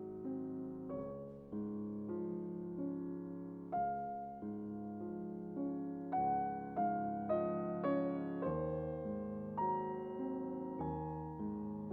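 Background piano music: gentle, unhurried notes struck about every half second and left to ring.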